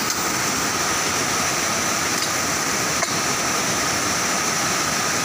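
Waterfall of a rain-swollen mountain stream in strong flow: a steady, dense rush of falling water.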